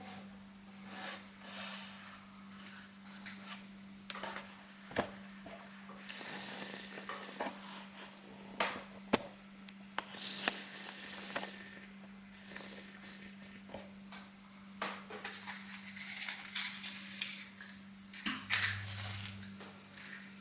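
Small objects being handled: scattered light clicks and knocks, the sharpest about nine seconds in, over a steady low electrical hum.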